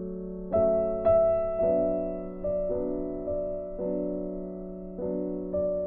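Background music: a slow, gentle piano piece, notes and chords struck every half second to a second, each one ringing and fading.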